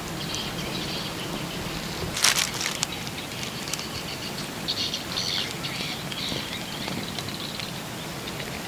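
Outdoor ambience of faint, scattered high chirping from birds and insects in the undergrowth, with a short rustle of handling about two seconds in.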